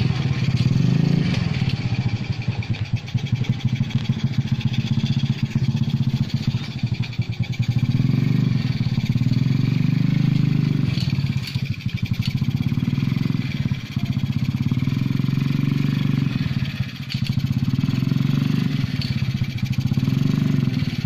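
A small motorcycle engine powering a homemade car, running with a rapid, even firing beat. Its level dips and rises again every few seconds.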